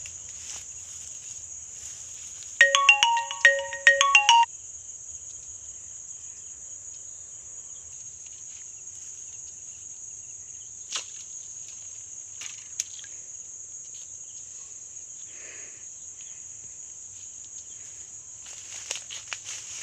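An electronic ringtone plays a short melody of stepped beeping notes, repeated twice, for about two seconds near the start. A steady high insect chirring runs underneath.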